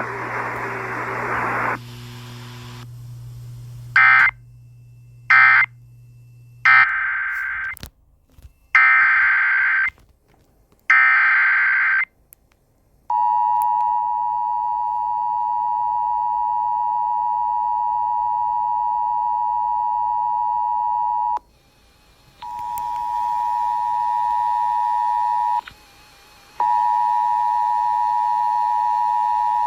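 Emergency Alert System signalling: a series of short, screeching digital data bursts, then the steady two-tone EAS attention signal starting about 13 seconds in. The tone cuts out briefly twice near the end.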